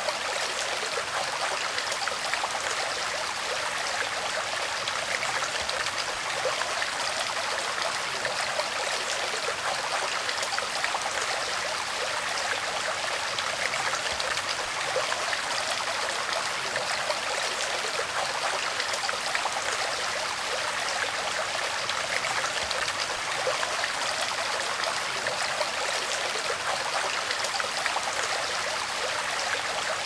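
Shallow woodland creek running: a steady, even babble of flowing water.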